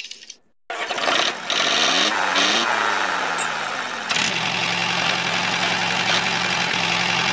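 Small motor running, with a brief drop-out just under a second in. Its pitch slides up and down for a few seconds, then it settles into a steady hum.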